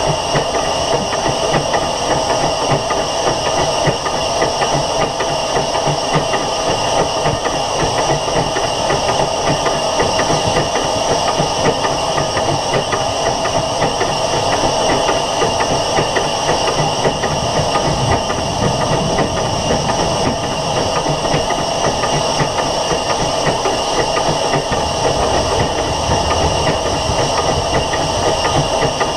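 SECR H class 0-4-4 tank steam locomotive running along the line, heard from on the locomotive itself: a steady mix of wheel-on-rail clatter and steam hiss.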